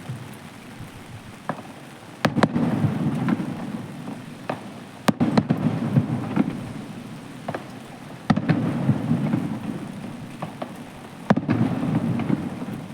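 Aerial fireworks shells bursting: four loud booms about three seconds apart, each trailed by a low rolling rumble that dies away, with scattered smaller cracks in between.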